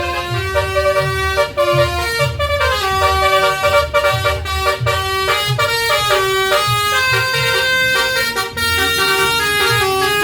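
A bus's basuri musical air horn playing a tune of sustained, changing notes, with a low rhythmic pulse underneath.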